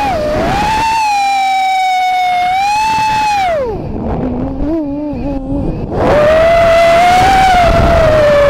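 Vortex Pro FPV racing quadcopter's brushless motors and propellers whining, recorded on board, the pitch rising and falling with the throttle. About three and a half seconds in the whine drops low and quiet as the throttle is cut. About six seconds in it surges back up and louder.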